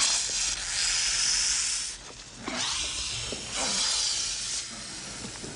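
Snakes hissing, a film sound effect: a long hiss of about two seconds, then, after a short break, a second long hiss, with a few short squeaks under it.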